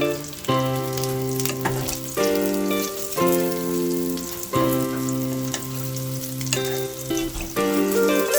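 Cubes of tofu sizzling as they fry in oil, a steady crackle with many small pops. Background music plays over it, with sustained notes that change about once a second.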